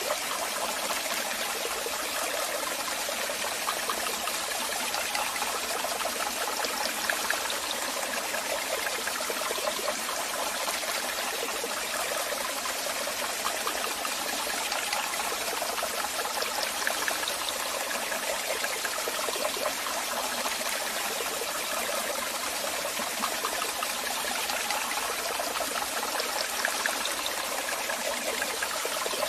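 Waterfall running steadily: a continuous hiss and splashing of falling water, with little deep rumble.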